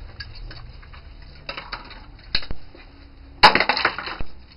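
Clicks and clatter of a TV circuit board and its tin shield being handled, with one loud, sharp metallic clank about three and a half seconds in, followed by a brief rattle.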